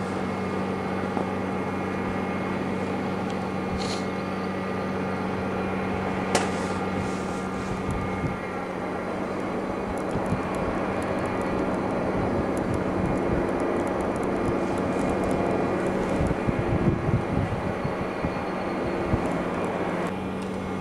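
A steady mechanical hum with a constant low tone, with irregular low rumbling buffets in its second half.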